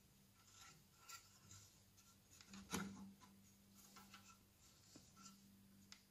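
Faint handling noises from a Hychika CS-190C circular saw: small metal clicks and rubbing as its steel base plate is moved and the bevel-lock knob is worked, with one sharper knock about three seconds in.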